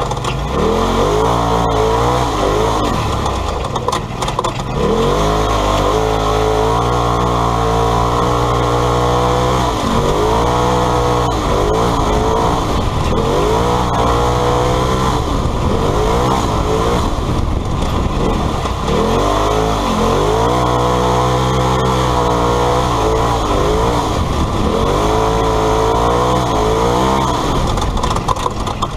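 Polaris RZR side-by-side's engine heard from inside the cab under hard rally driving, the revs climbing and dropping again and again as the throttle comes on and off.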